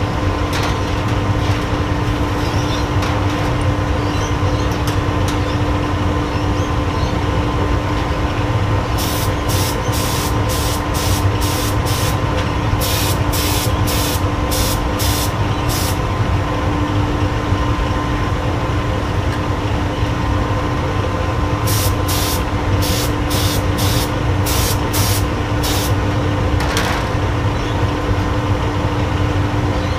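Compressed-air spray gun spraying die coating onto a gravity die: two series of short hissing bursts, one about a third of the way in and another past two-thirds. Under them runs the steady noise of the lit melting furnace, with a hum.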